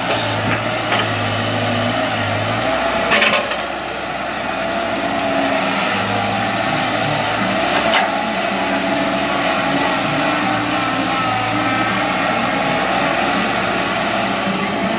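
Caterpillar 312D hydraulic excavator's diesel engine running steadily while digging, its low note dropping and picking up again a few times, with a sharp knock about three seconds in and another about eight seconds in.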